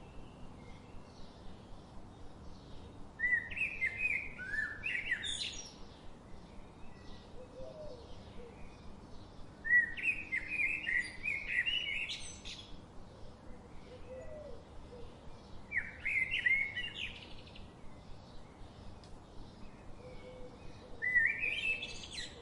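A songbird singing, a loud warbling phrase about every six seconds, four phrases in all, each ending in a quick rising sweep. Fainter chirps from other birds carry on throughout.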